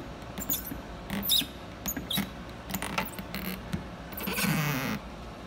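Plastic quarter-inch elbow fitting and thin tubing being worked into the storage jar's plastic lid: a run of small clicks and squeaks, with a longer scraping rasp about four seconds in.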